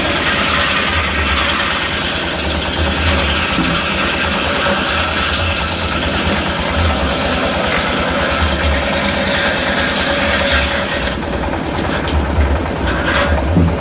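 Engine-driven circular sawmill running steadily with a pulsing low engine hum, over a higher rushing noise that fades about eleven seconds in, followed by a few short sharp knocks near the end.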